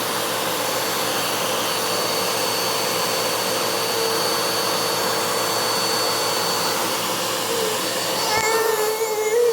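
Vacuum cleaner running steadily, its motor noise carrying a constant hum and a thin high-pitched whine.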